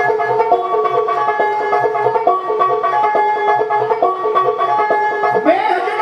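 Live band music: a quick plucked-string melody over a steady beat, with a voice gliding upward near the end.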